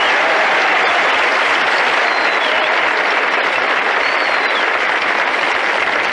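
Crowd applauding steadily in a long, even ovation.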